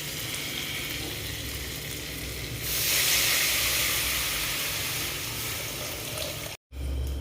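Onions, chillies and Maggi masala frying in oil in a kadhai, sizzling steadily; about two and a half seconds in, the sizzle jumps to a loud hiss as water goes into the hot pan, then slowly dies down. The sound cuts out briefly near the end.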